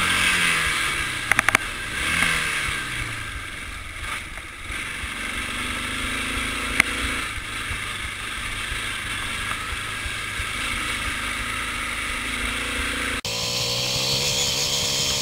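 Quad bike (ATV) engine running while being ridden, its revs dropping and climbing several times. The sound changes abruptly near the end.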